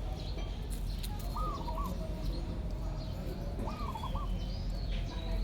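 Two short, high calls from a small animal, each a quick rise and fall with a smaller one after it, about a second and a half in and again near four seconds, over a steady low rumble.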